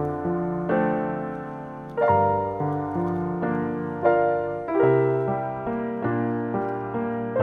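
Background music: solo piano playing slow chords and melody, each note struck and left to fade.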